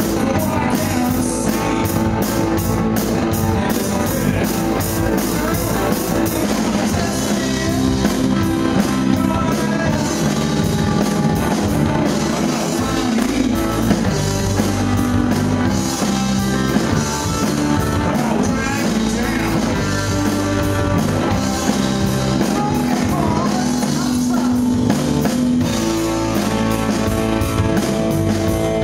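Live rock band playing through amplifiers: electric guitars, bass and a drum kit, with cymbals keeping a steady beat.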